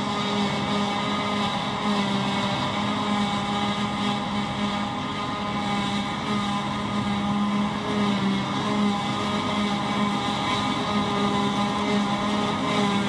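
CLAAS self-propelled forage harvester running steadily as it picks up and chops a windrow of grass, a constant engine hum with no change in pitch.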